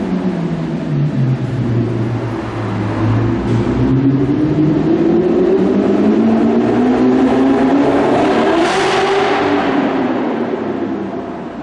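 Audi R8 V8 engine through its Armytrix valved exhaust, driving slowly. The engine note drops in the first second or two, stays low, then climbs steadily to a brief louder surge about eight or nine seconds in before easing off. The exhaust echoes inside an underground car park.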